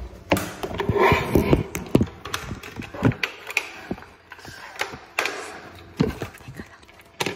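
Handling noise: a string of knocks, taps and rustles as the phone is moved about and a box is brought down onto a table, with a last sharp knock near the end.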